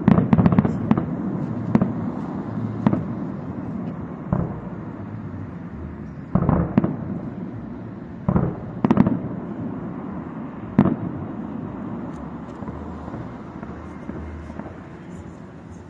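Aerial firework shells bursting in a fireworks display: a quick cluster of bangs at the start, then single booms every second or two that thin out and grow quieter toward the end, each followed by a low rumble.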